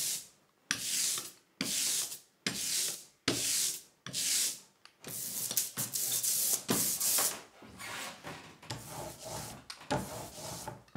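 A rubber hand roller (brayer) is rolled back and forth through black printing ink on an inking slab, each stroke a hiss, about one a second at first. Near the end come quieter strokes as the inked roller is run over the woodcut block.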